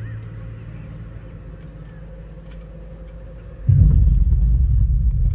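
Soundtrack of an outdoor light-and-sound show over loudspeakers: a low sustained drone fades down, then about three and a half seconds in a loud, deep rumble starts suddenly and keeps going.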